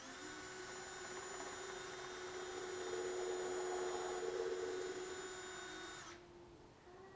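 Cordless drill's motor spinning up with a quick rising whine, running steadily for about six seconds, a little louder in the middle, then stopping suddenly.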